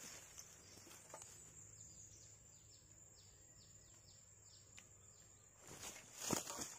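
Faint outdoor ambience: a steady high insect drone, with a bird call in the middle made of about eight short, falling chirps in quick succession. A short louder burst of noise comes near the end.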